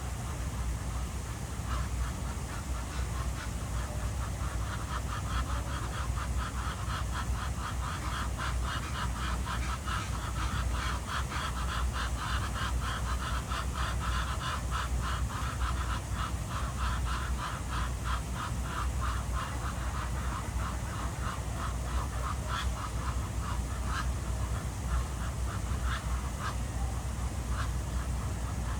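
Ducks quacking in quick runs of short calls, densest through the middle and thinning out near the end, over a steady low rumble.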